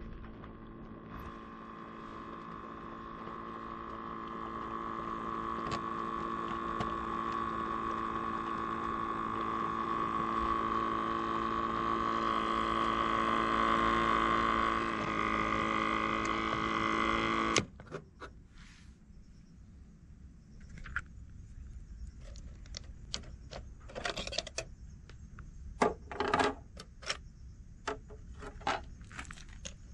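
A steady electric hum with a clear high tone from a small device in a model trailer, growing louder over the first dozen seconds, then cutting off abruptly a little past halfway. After it come light clicks and small metal clinks of a plastic hatch and a metal ladder being handled.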